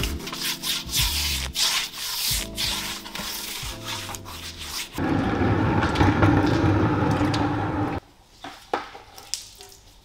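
A stiff detailing brush scrubbing a wet wheel and tire in short rubbing strokes. From about five seconds in the rubbing gets louder and continuous, then cuts off about three seconds later, leaving only a few light clicks.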